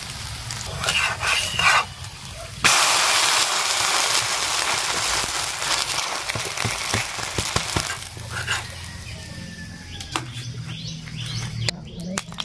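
Semolina batter roti sizzling in hot oil on an iron tawa: the sizzle starts suddenly about three seconds in and slowly dies down. Near the end come a few scrapes and clicks of a metal spatula on the tawa.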